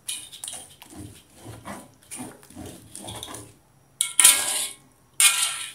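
Thick palm sugar syrup bubbling and plopping in a wok as it is stirred with a wooden spatula: a quick irregular run of low blips. Near the end come two louder scraping bursts.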